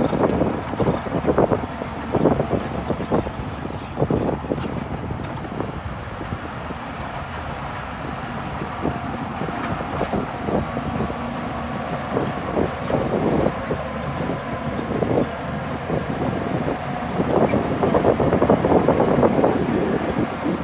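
Bulldozer's diesel engine running hard, with repeated clanks and knocks that come thickest in the first few seconds and again near the end.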